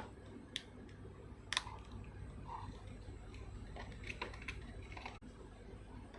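Irregular light clicks and taps as a small plastic network cable tester and its parts are handled. The sharpest click comes about a second and a half in, and a quick run of clicks follows near four seconds.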